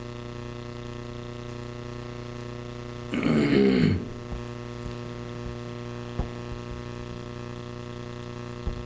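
Steady electrical mains hum in the sound system, with a brief vocal sound from a man about three seconds in and a faint click past the middle.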